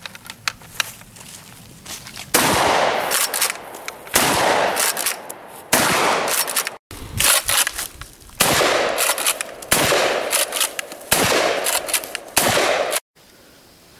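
UTS-15 12-gauge pump-action bullpup shotgun fired about seven times, roughly one and a half seconds apart, starting about two seconds in. Each blast is loud and followed by a long echo.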